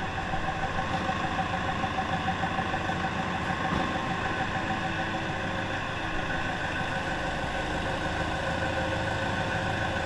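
Diesel engine of a wheeled lifting machine idling steadily, with a steady whine over its running.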